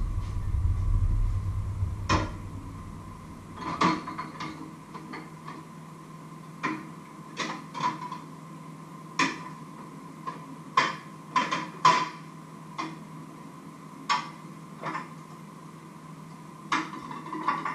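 Plates and cutlery clinking and clattering in a steel kitchen sink during hand dishwashing: a dozen or so separate sharp clinks, spread unevenly. A low rumble fills the first two seconds, and a faint steady hum runs underneath.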